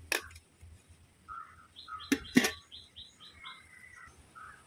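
A click, then two sharp metal clanks just after two seconds in as a metal rice pot and its lid are handled and set down. Small birds chirp repeatedly in the background.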